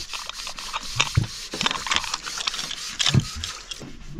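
Irregular knocks and scraping, with the loudest knocks about a second in and about three seconds in.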